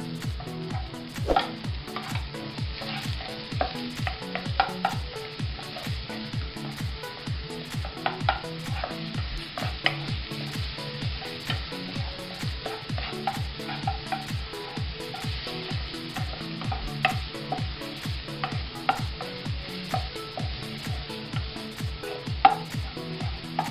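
Minced garlic and onion sizzling in oil in a nonstick pan while a wooden spatula stirs and scrapes them, with scattered sharp taps of the spatula against the pan.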